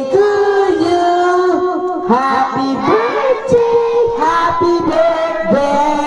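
Voices singing a song in long held notes.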